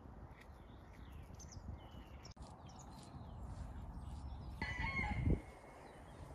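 Small birds chirping, then a chicken gives one short, loud call about five seconds in.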